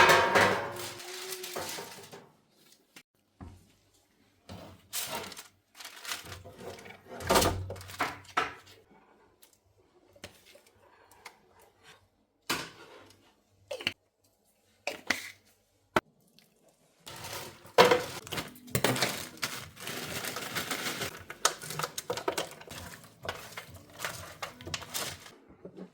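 Scattered knocks and thuds with short gaps of quiet, then a busier run of clatter in the second half.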